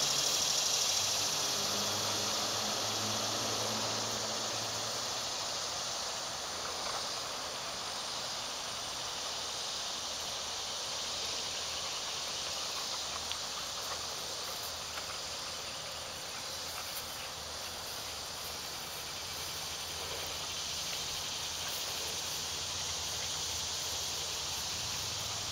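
Steady high-pitched chirring of summer insects. A low engine-like hum underlies the first few seconds and fades out.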